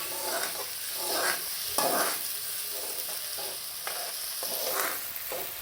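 Chopped onions frying in hot oil in a pan, sizzling steadily, while a spoon stirs them in irregular strokes about once or twice a second; the onions are being cooked until they turn brown.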